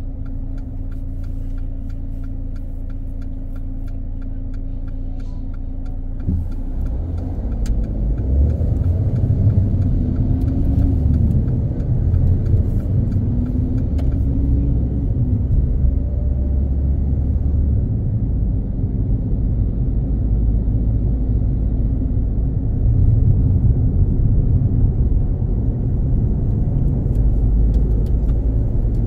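Car road noise and engine rumble heard from inside a moving car. It gets louder from about eight seconds in, and the engine's pitch rises and falls for a few seconds. A regular light ticking runs through the first several seconds.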